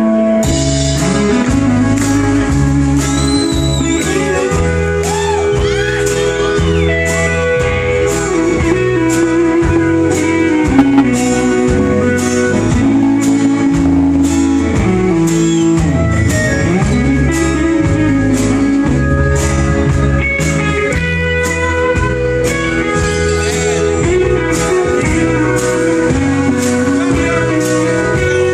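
Live rock band playing an instrumental break: a lead guitar solo with sliding, bending notes over bass and a steady drum beat.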